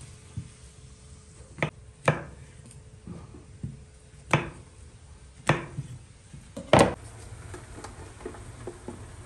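Kitchen knife slicing button mushrooms on a wooden cutting board: five loud, sharp knocks of the blade hitting the board, spaced irregularly, with a few lighter taps between. Near the end the knocks stop, leaving a faint steady background with light ticking.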